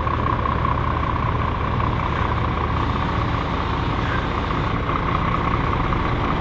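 Scania semi-truck's diesel engine running as the truck drives slowly by, a steady low rumble with a steady high tone above it.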